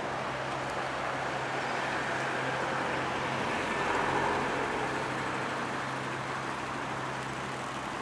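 Steady outdoor city traffic noise with a constant low hum underneath, swelling slightly about four seconds in.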